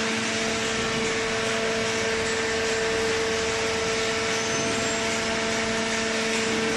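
Hydraulic cardboard baler running, its motor and pump giving a constant hum over steady machine noise.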